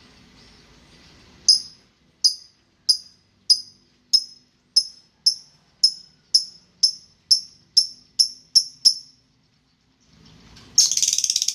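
Pet songbird calling a series of about a dozen sharp, high single chirps that come slightly faster as they go, then breaking into a rapid trill near the end.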